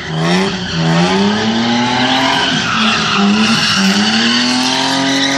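BMW E30 drifting: the engine revs hard, its note dipping and climbing again every second or so, over the screech of sliding tyres.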